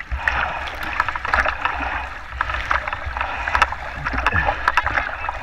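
Sea water splashing and lapping around a camera held at the surface by a swimmer, with many irregular sharp splashes over a steady low rumble.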